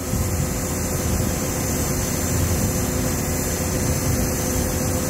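Construction lift's motor running steadily as it climbs the tower: a steady hum over a low rumbling noise.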